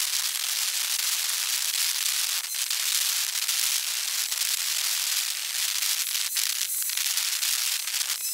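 Dense, even crackling hiss with no low sounds and a few faint clicks: backyard sound played fast-forward along with the sped-up footage.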